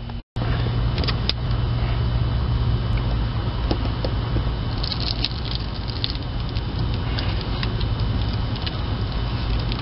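Flat-blade screwdrivers prying and scraping at the edge of a steel floor access cover stuck down with strip caulk, giving scattered small metallic clicks and taps over a steady low hum.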